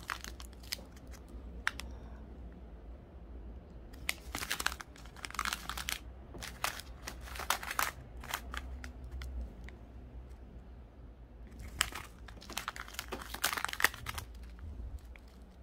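Small plastic zip-lock bags of nail-art parts crinkling as they are handled, in several spells of dense crackling about 4, 7 and 12 seconds in, with single crackles between.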